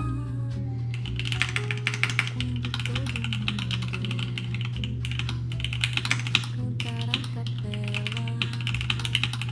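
Hands typing quickly on a Drop CSTM80 mechanical keyboard: a dense clatter of keystrokes starting about a second in, with brief pauses, over background music.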